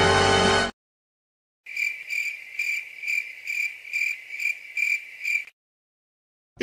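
Music cutting off under a second in, then crickets chirping: a high, even chirp repeating about twice a second for nearly four seconds, the comedy 'awkward silence' cricket effect.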